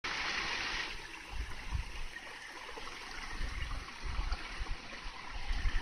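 Shallow woodland brook babbling and trickling over stones, a steady rush of water that is louder for the first second. Low rumbles come and go underneath.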